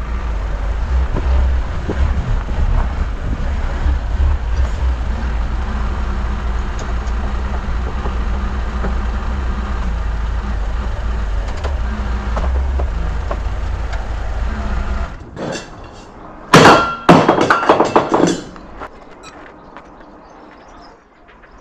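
Truck engine running steadily, cut off abruptly about fifteen seconds in, followed by about two seconds of loud sudden hissing and clattering bursts.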